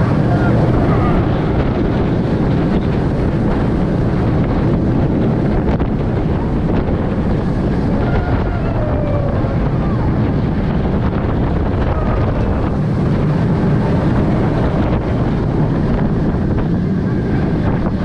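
Wind rushing steadily over the microphone along with the low rumble of a steel roller coaster train running through its course, heard from a seat on the train.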